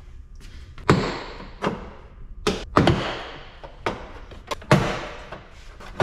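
A pry bar worked against a pickup truck's door and its inner trim panel: about eight sharp knocks and thuds at uneven intervals, the louder ones ringing briefly in the door, as the panel is levered to pop its clips loose.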